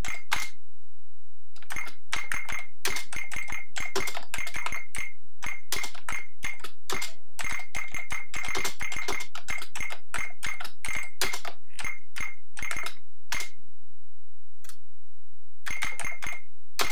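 Rapid typing on a clicky computer keyboard, with runs of keystrokes broken by a short pause about a second in and a longer one near the end.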